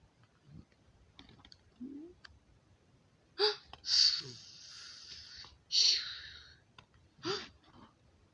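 A person's voice making short non-word sounds: a few brief pitched squeaks and gasps, with a long breathy hiss in the middle.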